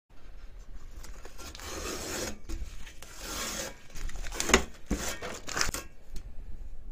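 Masking tape being rubbed and peeled on a 3D printer's metal bed. Scratchy rubbing comes in stretches, then a few sharp rips of tape in the second half, the loudest about four and a half seconds in.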